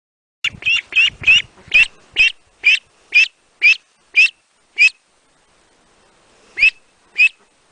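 A duck quacking in a quick series of about eleven short calls, a little slower toward the end, then a pause and two more quacks.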